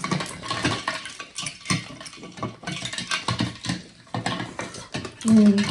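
Ice being crunched and chewed close to the microphone: a dense, irregular run of cracks and crackles.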